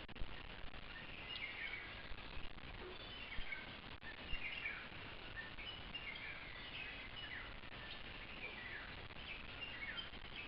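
Birds calling in the hills over a steady background hiss, with short falling chirps repeated every second or two.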